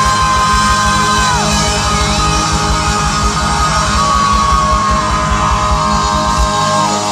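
Live rock band playing loud. An electric guitar holds long notes that bend down at their ends, over a fast kick-drum run that stops about six and a half seconds in.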